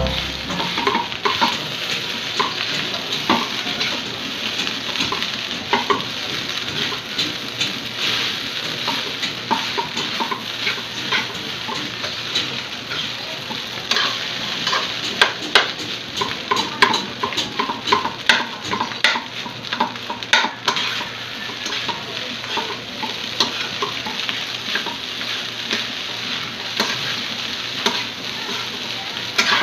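Rice frying in a metal pan on a gas burner: a steady sizzle with many short, sharp pops and clicks as it is stirred.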